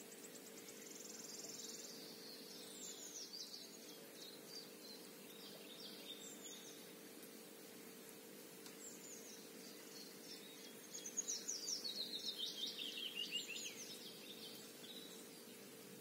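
Small songbirds singing: two spells of quick, high chirping song, the second and loudest starting about eleven seconds in as a run of rapid falling notes. A faint steady hum lies underneath.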